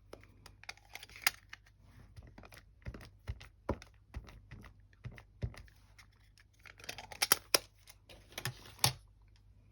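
Scattered light clicks and taps with plastic crinkling as clear rubber-style stamps and their plastic backing sheet are handled, a denser patch of crinkling about seven to nine seconds in.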